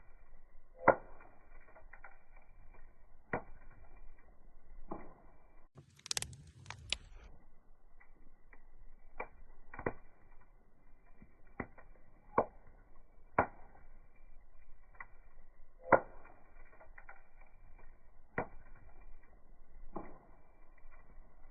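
A series of sharp knocks at an uneven pace, roughly one every one to two seconds, each with a short faint ring. About six seconds in comes a brief high hissing crackle lasting about a second.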